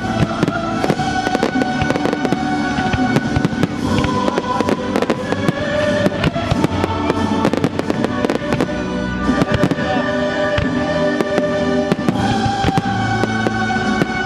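A fireworks barrage with many rapid bangs and crackles, over music with held notes playing throughout.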